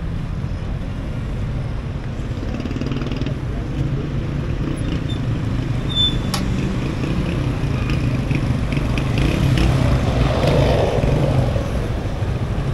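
Street traffic: cars and motorcycles driving past with their engines running. A passing vehicle grows louder about ten seconds in.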